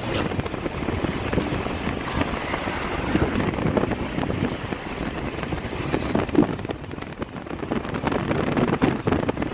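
Wind buffeting the microphone over the steady rumble of a moving road vehicle, filmed from an open window.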